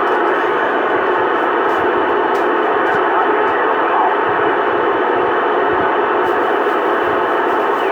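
CB radio receiver hissing with static, a steady band-limited noise from the radio's speaker with no clear signal coming through. Near the very end a whistle begins sliding down in pitch.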